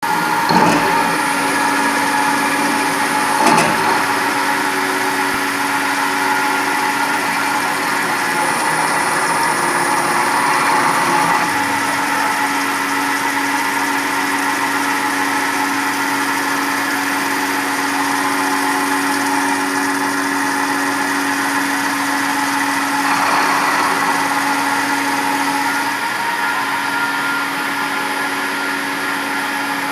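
Fanuc Model D CNC vertical milling machine, its Fanuc AC spindle turning an end mill that cuts a pocket into a steel block, a steady machining whine and hum. Two sharp knocks come about half a second in and again about three and a half seconds in.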